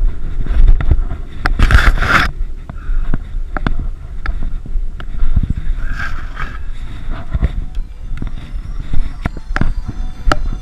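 A hiker's aluminium trekking poles clicking and tapping while being handled and adjusted, over a steady low rumble on the microphone. A short scraping rush comes about two seconds in.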